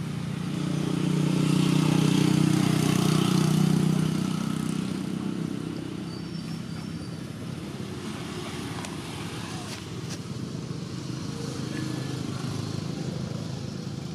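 A motor vehicle's engine running past, loudest from about one to four seconds in, then fading to a weaker steady engine drone that swells a little again near the end.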